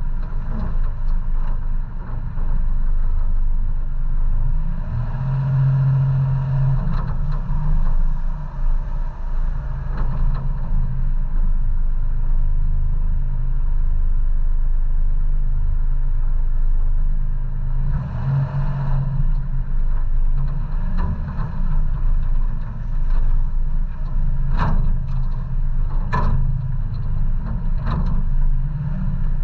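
1990 Toyota 4Runner with a solid-axle swap crawling a rutted dirt trail: its engine runs low and steady, pulling harder twice for a few seconds. A few sharp knocks come near the end as the truck goes over rough ground.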